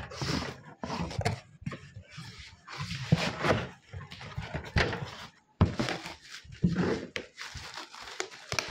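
A cardboard carton wrapped in clear plastic tape being handled and torn open: irregular rustling and crackling of cardboard and plastic, with several sharp knocks, the loudest at the very start.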